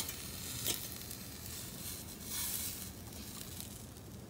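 Chicken breasts sizzling on the grate of a charcoal Weber Smokey Joe grill as they are turned with metal tongs, with two sharp clicks of the tongs on the grate in the first second and the hiss swelling briefly about halfway through.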